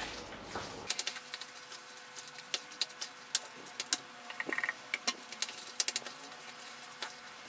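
Wooden spoon stirring and mashing a thick potato and tuna mayonnaise in a stainless steel pot, with irregular clicks and taps of the spoon against the pot.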